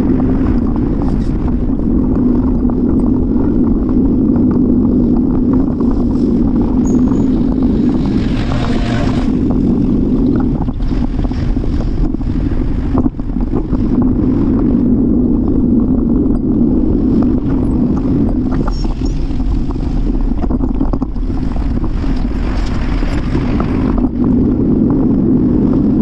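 Wind and road noise on the microphone of a camera riding on a bicycle: a steady low rumble, with two louder hissing swells, about a third of the way in and again later.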